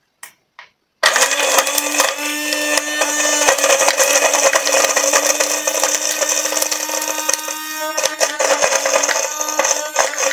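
BlendyGo 3 portable blender switched on: two short clicks, then about a second in its motor starts and runs steadily at one pitch. A constant clatter runs with it as the blade chops basil, garlic and walnuts in the jar.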